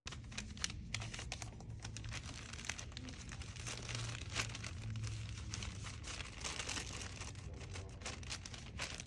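Packaging wrapper being crinkled and torn open by hand: a continuous run of crackling rustles with many short, sharp snaps. A low steady hum sits underneath.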